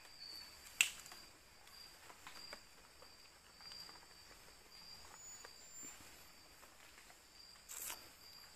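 Faint cricket-like insect chirping at one high pitch in steady repeated pulses, with a sharp click about a second in and a brief rustle near the end.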